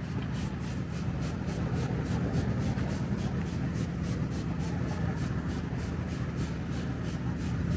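Handheld trigger spray bottle squirting soap cleaner onto an off-road tyre and wheel, in quick repeated pumps about three or four a second, over a steady low hum.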